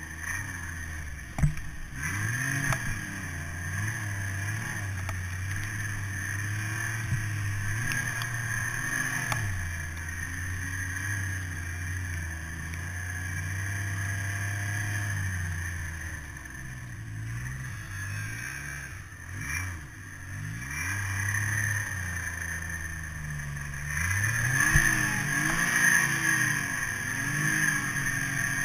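Snowmobile engine running under constantly changing throttle while riding through deep powder, its pitch rising and falling. There is a sharp knock about a second and a half in, and the engine is louder for the last few seconds.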